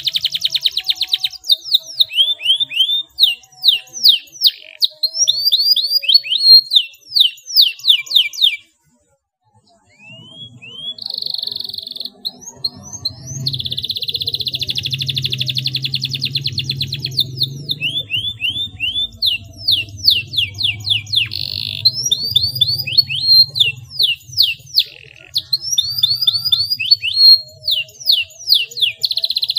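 Domestic canary singing a rolling song: long fast trilled rolls alternate with quick runs of sharp, falling whistled notes. The song stops completely for about a second and a half about nine seconds in, then resumes. A faint low hum sits under the song through the middle.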